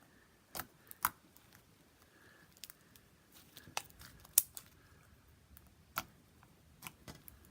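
Handling noise: a handful of sharp clicks and taps at irregular intervals, the loudest a little past the middle.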